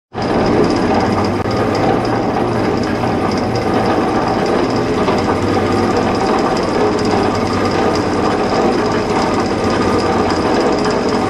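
Delta 14-inch band saw running steadily, a continuous mechanical drone with a fast rattle.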